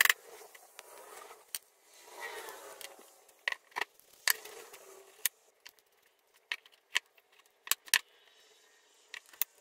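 Douglas fir blocks and wooden dowels being handled and set down on a board: a dozen or so sharp wooden clicks and knocks at irregular intervals, with a few short sliding scrapes between them.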